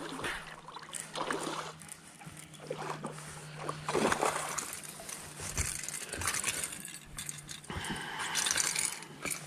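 A hooked bass splashing and thrashing at the surface as it is reeled to the boat, in several irregular splashes, the loudest about four seconds in. A steady low hum runs underneath.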